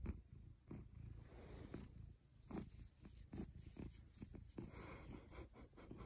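A domestic cat purring softly, close up, with faint rustles as a hand strokes its fur.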